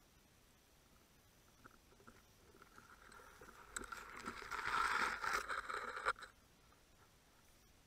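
Underwater scraping and rustling of the speargun and its mounted camera brushing through seagrass against a rock ledge. It builds from about three seconds in, is loudest around five seconds, and stops suddenly just after six.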